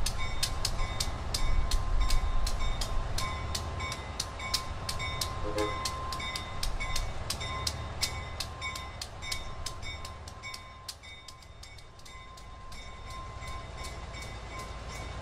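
A bell ringing steadily at about three strikes a second over the low rumble of a small diesel switcher locomotive moving slowly. The engine rumble eases after about ten seconds while the bell keeps ringing.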